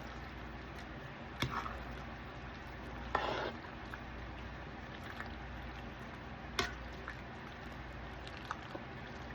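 Macaroni being stirred into thick cheese sauce: soft wet squishing, with a few sharp clinks and scrapes of a utensil against the skillet about 1.5, 3 and 6.5 seconds in. A steady low hum runs underneath.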